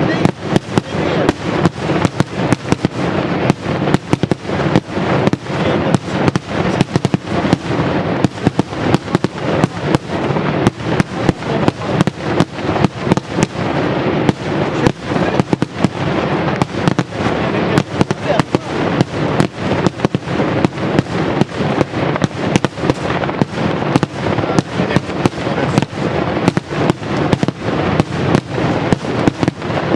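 Maltese daylight fireworks bursting in a dense, unbroken barrage: loud sharp bangs about two to three a second, with crackling between them.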